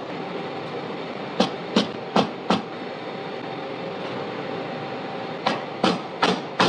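Sharp clicks of steel knurling-tool parts being handled and fitted together: four quick clicks, then another run starting near the end, over a steady hum.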